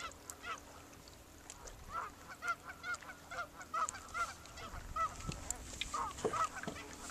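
Geese honking: a long series of short calls, about three a second, coming thickest after about two seconds in.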